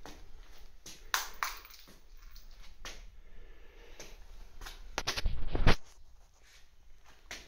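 Scattered light clicks and rustles of handling noise in a small room, with a louder rumbling bump lasting under a second about five seconds in.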